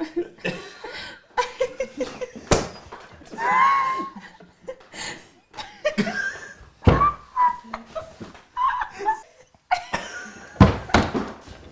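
A group laughing hard, with wheezing and squealing voices, broken by a few sharp thumps of hands hitting the table. The loudest thump comes near the end.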